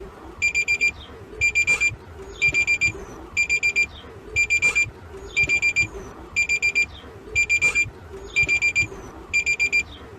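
Emergency alert attention tone sounding like an alarm clock: high-pitched electronic beeps in quick bursts of about five, each burst repeating about once a second.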